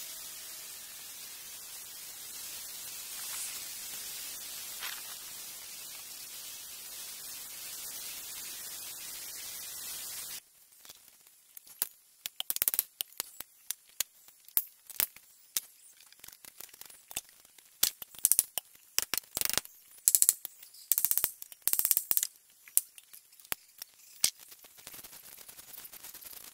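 A steady hiss for the first ten seconds cuts off suddenly. Then a stiff broom sweeps a concrete slab in sharp, irregular scratchy strokes, about one or two a second.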